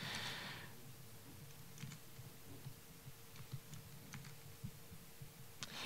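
Faint, scattered clicks of computer keys being pressed over a low steady hum, with a short hiss at the very start.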